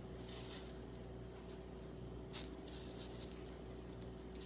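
Steam iron pressing a dampened fabric seam: several short, faint hisses of steam, the loudest about two and a half seconds in.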